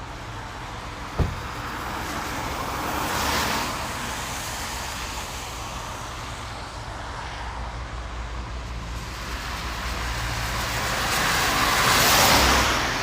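Car driving on a wet motorway: steady tyre and road noise over a low engine hum. The noise swells twice, once about three seconds in and again near the end, and there is a single short knock about a second in.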